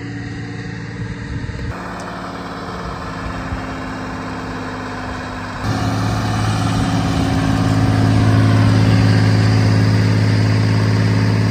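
Timberjack 230 skidder's Detroit diesel engine idling steadily. It becomes noticeably louder about six seconds in, when it is heard close up.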